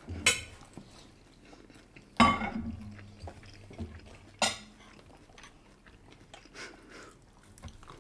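Eating noises at a table close to the microphone: chewing with a few sharp clicks and clinks of cutlery on dishes, the loudest about two seconds in, another near the start and one about halfway through.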